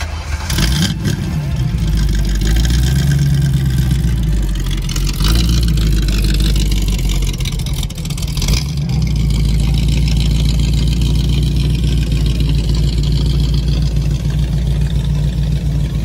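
The engine of a yellow 1932 Ford coupe hot rod starts about half a second in, then runs loudly with its revs rising briefly a few seconds in.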